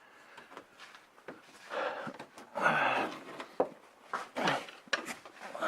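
Two heavy, effortful breaths or grunts, about two and three seconds in, followed by a scatter of light clicks and knocks as parts are handled.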